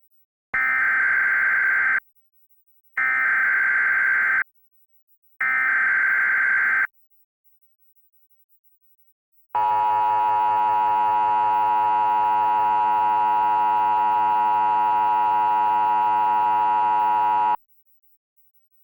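American-style Emergency Alert System opening: three bursts of SAME header data tones, each about one and a half seconds long with short gaps between, then the EAS attention signal, a steady two-tone alarm held for about eight seconds that cuts off abruptly.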